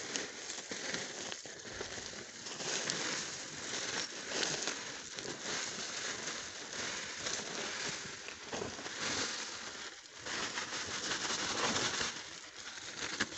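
Woven plastic sack crinkling and rustling as powdered charcoal is poured out of it, an unbroken rough rustle that swells and fades.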